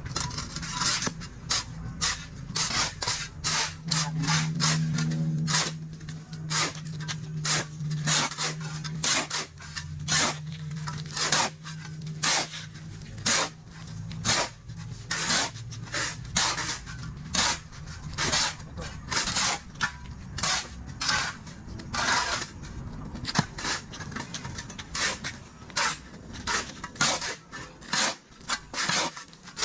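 Steel shovels scraping across a concrete slab as sand and cement are mixed dry by hand, in repeated rasping strokes about one or two a second.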